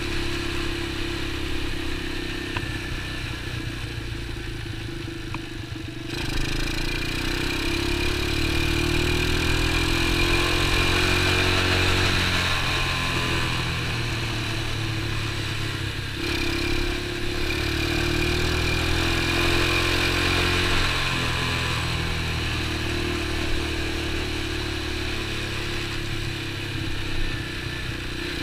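Super pocket bike engine running under way, heard close up from the bike. It gets louder about six seconds in as the throttle opens, drops briefly about sixteen seconds in, then picks up again before easing off.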